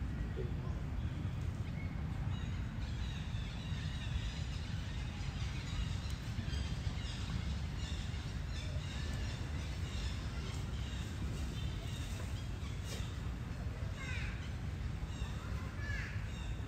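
Many short, high animal calls, chirping in quick runs through the middle, then a few swooping calls near the end, over a steady low rumble.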